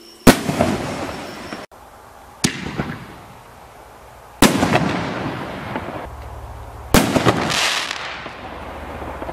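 Stinger Brand Sinister Canister aerial firework shells bursting overhead: four sharp bangs about two seconds apart, the first the loudest, each trailing off in a rumbling echo. Crackling stars sizzle after the last break.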